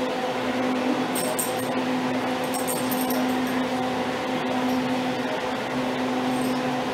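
A steady mechanical hum with a few clear steady tones. Over it, short metallic jingles of a dog's collar tags come a few times as the dog walks on the leash.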